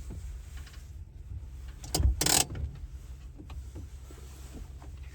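Low steady hum of a stationary car heard from inside the cabin, with a sharp click and a short loud rustle about two seconds in.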